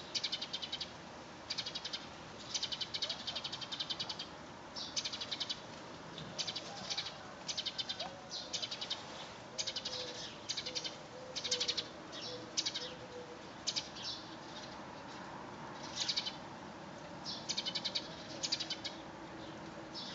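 Repeated short, high-pitched rasping calls from an animal, a dozen or more bursts of fast clicking pulses, each lasting well under a second.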